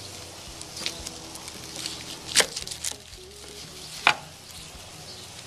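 A knife and metal tongs clicking and knocking on a wooden cutting board as husks are cut and peeled from a grilled ear of corn, with a few sharp knocks, the loudest about two and a half and four seconds in. Under it, meat sizzles faintly on the gas grill.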